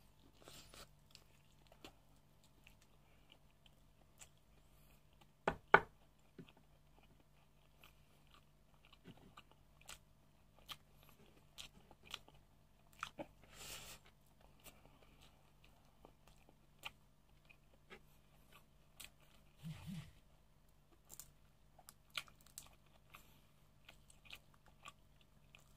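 A person chewing and biting mutton biryani and fried fish spring rolls eaten by hand, close to the microphone, with scattered crunches and mouth clicks. The loudest pair of clicks comes about five and a half seconds in.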